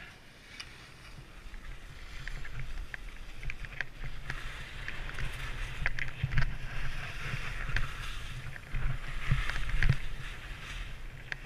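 Skis sliding and carving on packed snow during a fast descent: a steady scraping hiss with scattered short clicks, growing louder after the first couple of seconds, over a low rumble of wind on the microphone.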